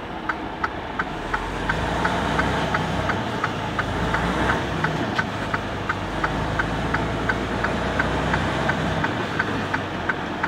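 A semi truck's diesel engine heard from inside the cab, pulling the rig slowly forward. Its low rumble picks up about a second in and eases off near the end as the truck comes to a stop. An even, fast clicking of about three a second runs underneath.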